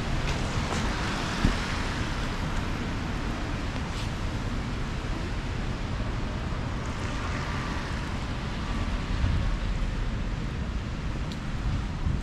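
City street ambience with cars passing on wet pavement, their tyres hissing in two swells, one early and one about seven seconds in, over a steady rumble of wind on the microphone. A short sharp knock stands out about a second and a half in.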